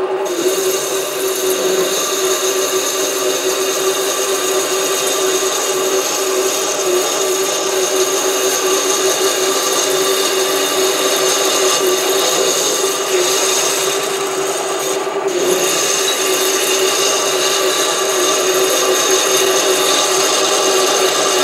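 SC2 mini lathe running under load as a parting-off tool is hand-fed into a 28 mm aluminium rod: a steady motor and spindle tone with a higher steady tone over the scraping hiss of the cut.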